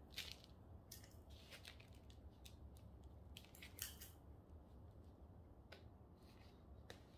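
Coarse, gritty potting mix being scooped with a metal scoop and poured into a plastic plant pot, then pressed in by hand: a scattered series of short, faint, dry scrapes and rustles.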